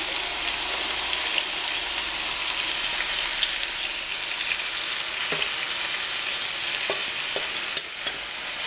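Strips of green and red bell pepper and onion sizzling steadily in oil in a frying pan as canned diced tomatoes are tipped in from a bowl. A few light clicks come near the end.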